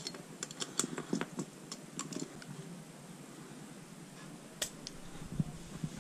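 Small metal parts clicking and tapping as a motorcycle carburetor and its fittings are handled and fitted together by hand: a quick run of light clicks at first, then a few scattered ones, with one sharper click past the middle.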